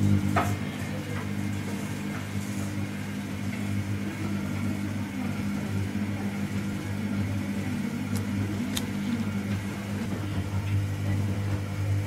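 Electric motor of a motorised bird-on-a-wire cat toy humming steadily as it whirls the toy bird round. There are a couple of sharp ticks, one soon after the start and one a little before the end.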